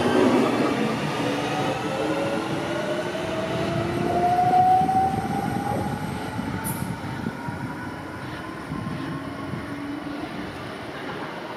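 NordWestBahn Class 440 (Alstom Coradia Continental) electric multiple unit accelerating out of the station. Its drive whines in several slowly rising tones over the rumble of the wheels, growing fainter as it pulls away.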